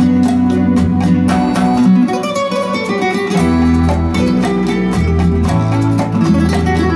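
Instrumental flamenco-style guitar music with a deep bass line, played through Dali Zensor 3 loudspeakers driven by a Vincent SV-700 amplifier.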